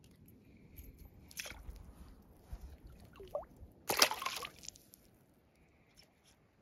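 Faint clicks as a lure's treble hook is worked free of a small landlocked salmon, then the fish is dropped back into shallow water with one short, sharp splash about four seconds in.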